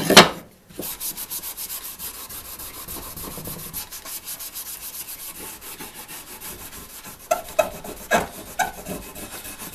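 A pad rubbing finish restorer into the old wooden handle of a hand saw, in quick, even back-and-forth scrubbing strokes. A sharp knock right at the start, and a few louder short scrapes near the end.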